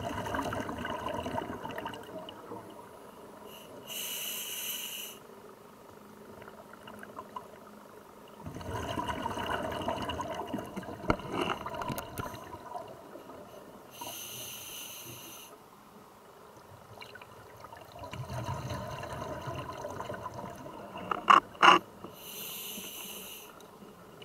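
Scuba diver breathing through a regulator underwater, three full breaths: each a few seconds of bubbling exhalation followed by a shorter, higher hiss of inhalation through the demand valve. Near the end come two sharp knocks close together, the loudest sounds here.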